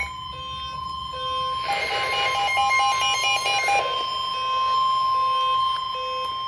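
Overlapping electronic emergency-alert tones: a steady high alert tone runs throughout, with short lower beeps on and off and a burst of rapid beeping at several pitches from about two to four seconds in.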